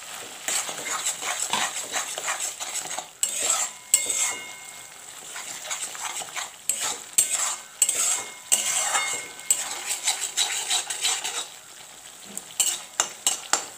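Flat metal spatula stirring and scraping a spice paste as it fries in mustard oil in a metal kadai, over a steady sizzle, with a few sharp clinks of the spatula on the pan near the end. The paste is being fried until the oil separates.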